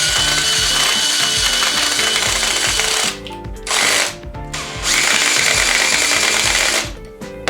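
Electric drill boring into wood with a steady whine, run in three bursts: a long one, a short one near the middle, then another of about two seconds that stops near the end. Faint background music underneath.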